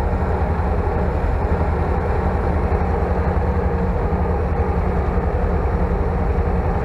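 Old tractor's engine running steadily as it drives along, heard from inside the cab.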